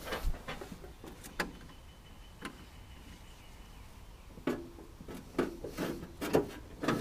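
A few separate knocks and clunks of things being handled, spaced out at first and coming closer together in the last couple of seconds, with a faint steady high tone in the middle.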